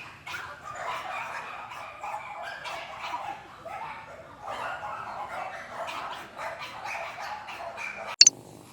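Several small pet animals crying and yipping over one another in a busy, overlapping chorus, with a sharp click just before the end.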